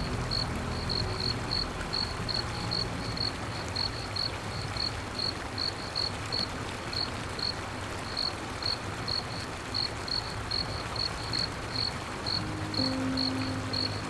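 A cricket chirping steadily, about three short high chirps a second, over a soft even hiss. Low sustained music tones come in near the end.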